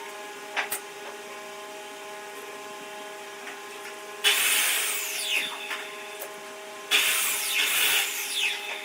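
Power tool running with a steady hum, cutting or grinding into wood in two loud, rasping stretches about four and seven seconds in.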